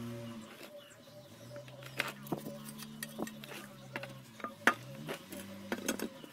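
Scattered clicks and knocks from scooter CVT parts and the aluminium CVT cover being handled, the sharpest about two-thirds of the way through. Under them runs a low sustained tone that stops and shifts pitch a few times.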